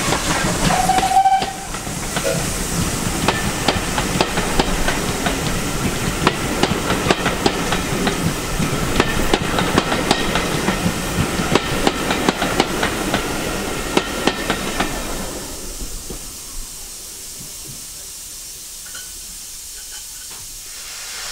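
Steam train of vintage coaches passing close by: a short steam whistle toot about a second in, then steam hiss and a stream of clicks from the coach wheels over the rails as the train rolls past, fading away about three-quarters of the way through.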